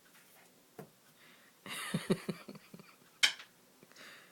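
A hard cough drop clicking and clattering on a hard surface as a cat knocks it down. There is a brief rattling scuffle, then one sharp click.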